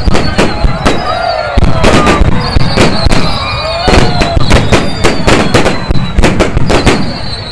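Fireworks going off: a dense, rapid run of sharp bangs and cracks, several a second, with no let-up.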